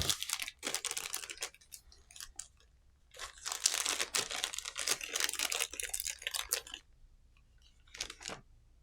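Packaging being crinkled and torn by hand, in two long stretches of rustling, with two sharp clicks near the end.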